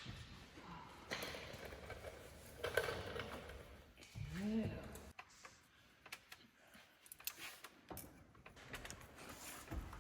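Faint scattered clicks and light metal knocks from hand work on a 4x4 wrecker's front locking hub as it is seated on its splines. About four seconds in there is a short vocal sound that rises and falls in pitch.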